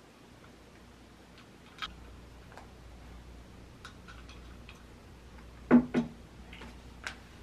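Scattered light clicks and ticks, then two sharp knocks close together, the loudest sounds, as a drinking glass of iced tea is set down on a table.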